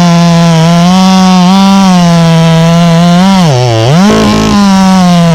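Two-stroke chainsaw running at high revs while cutting mango wood. Its pitch dips briefly about three and a half seconds in, then climbs back.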